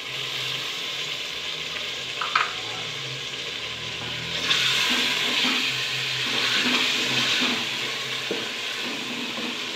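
Chopped tomatoes and green chillies sizzling in hot oil with fried onions in an aluminium pot. The sizzle grows louder about halfway through as a wooden spoon stirs the mix.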